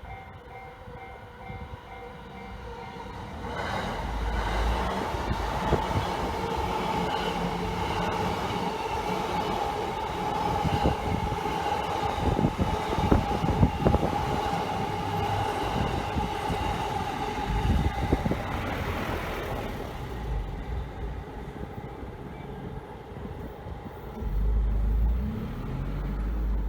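A level-crossing warning bell rings with a steady repeating ding. A few seconds in, a Yamanote Line commuter train passes over the crossing, with a steady whine and wheels clacking over the rail joints. The train fades after a quarter of a minute or so, and wind buffets the microphone near the end.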